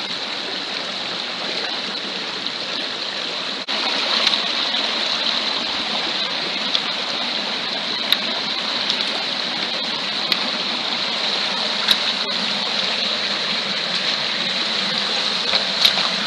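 Shallow stream rushing over stones, with small waterfalls pouring from a culvert: a steady water noise that gets louder a little under four seconds in, with a few short ticks.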